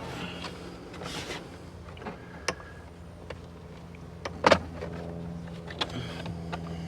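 Plastic interior trim being worked loose by hand, with rustling and a few sharp clicks and snaps, the loudest a quick pair about four and a half seconds in, over a steady low hum.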